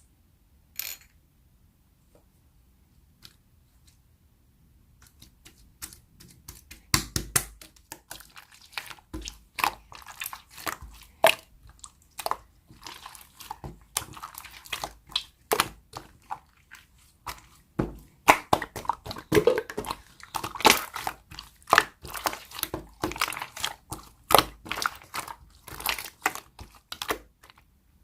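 Slime being squished and pressed by hand, giving a rapid, irregular run of sticky pops and clicks that starts after a few quiet seconds.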